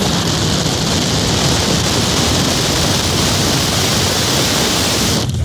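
1999 GMC Sierra pickup driving hard on the road: a loud, steady rush of wind and road noise with the engine running underneath. The rush briefly drops away near the end.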